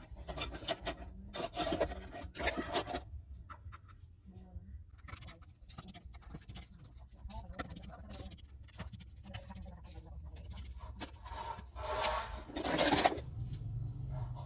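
Irregular scraping and rubbing of tools being worked against a phone on a repair bench, in uneven strokes with a louder stretch near the end, over a steady low hum.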